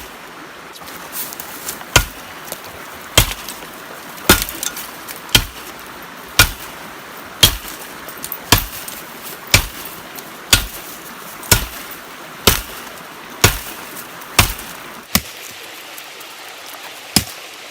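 Survival shovel used as a chopper, its blade striking a small dead tree in steady chops about once a second, with a short pause near the end before the chopping resumes.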